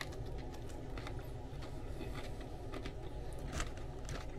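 Someone chewing a mouthful of sub sandwich, faint soft clicks and mouth sounds over a steady low room hum.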